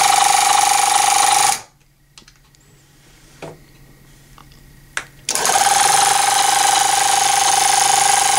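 Cheap 12-volt tire inflator's motor-driven piston compressor running loudly with a steady high hum. It stops about a second and a half in, a few small clicks sound in the gap, and it starts again about five seconds in and keeps running.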